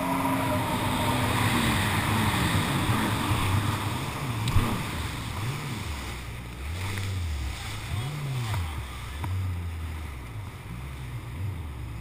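Kawasaki Ultra LX jet ski running at speed with water and spray rushing past the hull, then easing off the throttle, its engine pitch falling and swelling up and down several times as it slows. A single sharp knock about four and a half seconds in.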